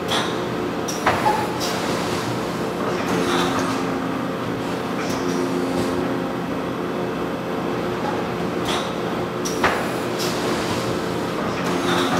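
Steady drone of food-processing machinery, several tones at once, with a few sharp clicks and knocks: two about a second in and one near ten seconds.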